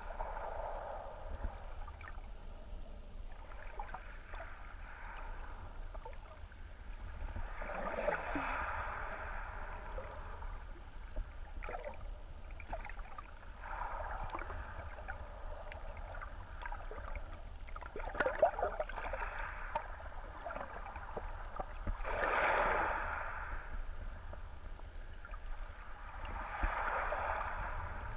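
Muffled underwater water noise picked up through a GoPro's sealed housing: a steady low rumble with hissing swells that rise and fall every four to five seconds, and a few faint clicks.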